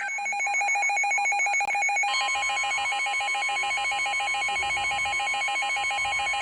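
Weather radio alert alarm: a rapid, trilling electronic beep, joined about two seconds in by the steady 1050 Hz NOAA Weather Radio warning tone. The alarm announces an incoming severe thunderstorm warning.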